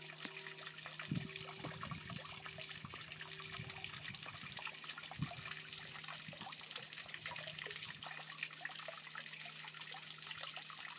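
Steady trickle of water in a fish pond, over a low steady hum.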